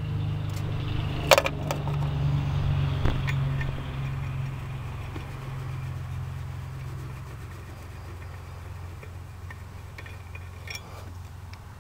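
A few sharp metallic clinks of a socket wrench on the water pump pulley bolts, the loudest about a second in, over a low steady drone that fades after about seven seconds.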